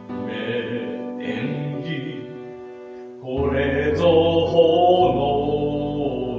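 Instrumental backing music of a musical-theatre song with held notes, growing louder about three seconds in.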